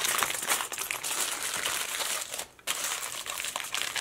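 Aluminium foil crinkling and crackling as it is folded and rolled tightly around a fish to make a foil packet, with a brief pause about two and a half seconds in.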